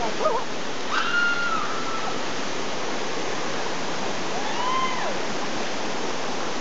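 Steady rushing of a waterfall pouring over a rock slide. Two brief calls sound over it, about a second in and again near five seconds in.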